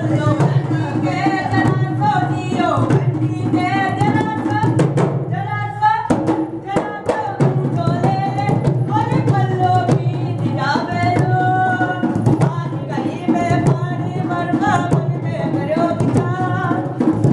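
Music for a Rajasthani kathputli puppet dance: a voice singing a folk melody over a steady drum beat.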